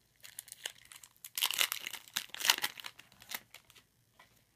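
Trading card pack wrapper crinkling and tearing as it is opened, in bursts that are strongest through the middle and die away near the end.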